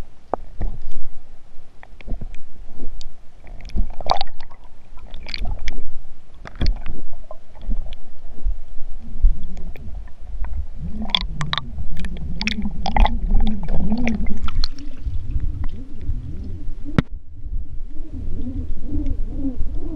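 Muffled underwater sound picked up by a GoPro in its waterproof housing as it is dragged with a fishing magnet through a flooded stone well: repeated sharp knocks and scrapes against the stone walls and bottom over a low rumble of moving water.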